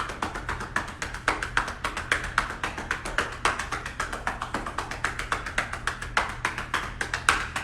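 Hands patting rapidly and steadily up and down a person's back, several pats a second: chest physiotherapy percussion, done to break up and loosen mucus in the lungs.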